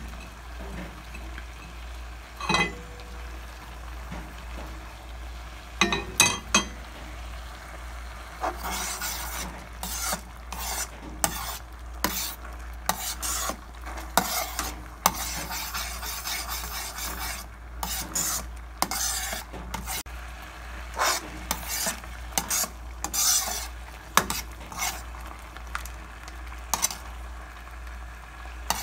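Metal ladle stirring a thick tomato-and-pineapple sauce in a pot, scraping the pot in many short, irregular strokes, with a few sharp clinks of the ladle against the pot in the first several seconds. The sauce sizzles faintly underneath.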